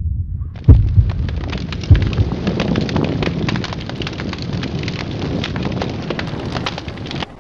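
Volcanic eruption: a steady rumbling roar full of sharp crackles starting about half a second in, with two heavy low thumps in the first two seconds. It cuts off just before the end.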